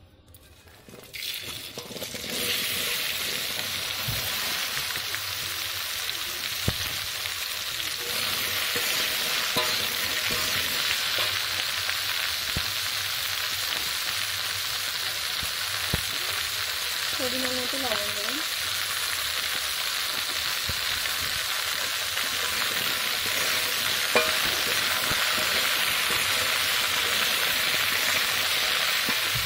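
Chopped okra frying in hot oil in an iron karahi: a loud, steady sizzle that swells about a second or two in as the pieces hit the oil, with a few sharp taps of a steel spatula stirring.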